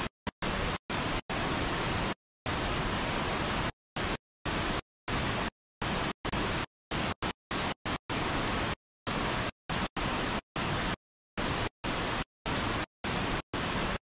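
Steady rushing of water pouring over a small rocky cascade into churning white water. The sound is even, hiss-like noise that keeps cutting out abruptly to dead silence for fractions of a second at irregular intervals, as if gated or dropping out.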